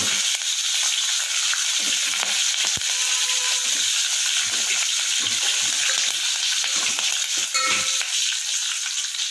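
Hot oil sizzling steadily in a pan, with curry leaves just tipped into the browned tempering, and a few light knocks of the pan being stirred.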